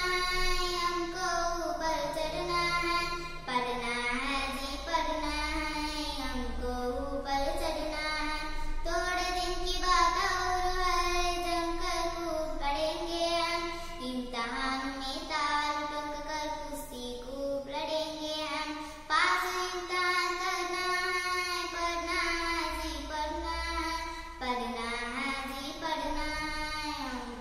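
A young girl singing a Hindi school poem solo, in held notes that rise and fall in a simple tune, with short breaks for breath between lines.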